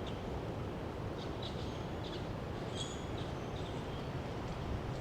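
Small birds chirping: a handful of short, high calls in the middle, over a steady low background rumble.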